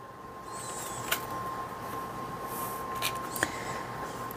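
Quiet handling sounds of a metal cookie cutter pressed into rolled cookie dough on parchment and lifted out: soft rustling with a few light clicks, over a faint steady high-pitched tone.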